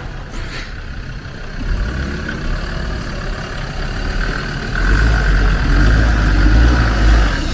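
A four-by-four's engine running as it drives an off-road lane, its low rumble getting louder about five seconds in.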